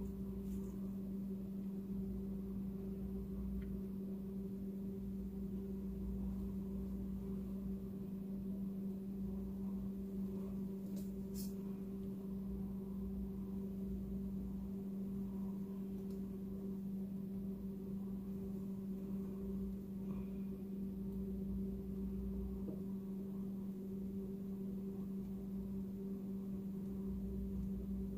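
A steady low hum with a fainter higher tone above it, unchanging throughout, and a single faint click about eleven seconds in.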